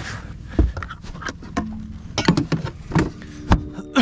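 Irregular knocks and clunks, about six in four seconds, over a low steady rumble: hard objects being handled and set down.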